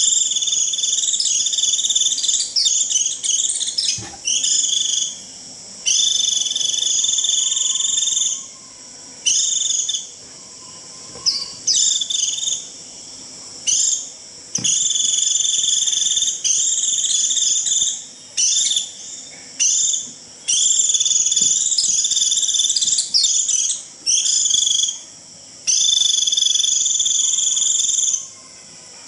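White-eye (vành khuyên) giving its shrill, buzzy 'rít' flock call in repeated runs of about one to two seconds with short pauses. It is the call that gathers a flock of white-eyes.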